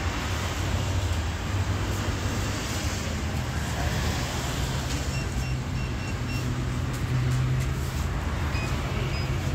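Steady low rumble of a running vehicle engine and road noise, with a quick run of about five short electronic beeps about halfway through and two more near the end.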